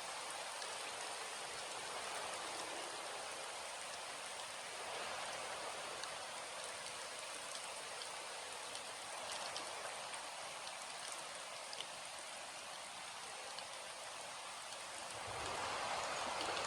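Steady rain falling, an even hiss with scattered individual drop ticks. Near the end it swells louder, with a low rumble underneath.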